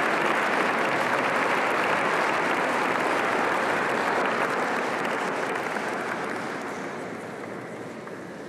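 Audience applauding in a highly reverberant concrete church, the clapping thinning out and dying away over the last few seconds.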